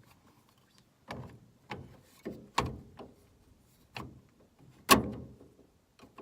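A new interior door latch being worked into place on a Sprinter van's sliding door: a series of about seven sharp clicks and knocks, the loudest about five seconds in.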